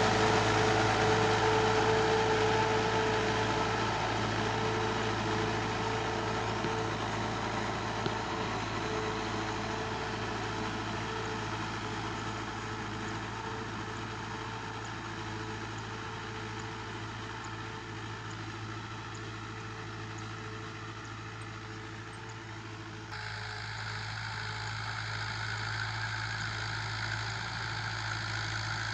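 Fiat 640 tractor's diesel engine running as it pulls a disc harrow through a field, fading steadily as the tractor moves away. After a sudden cut about two-thirds of the way through it is heard again, slowly growing louder as the tractor comes back.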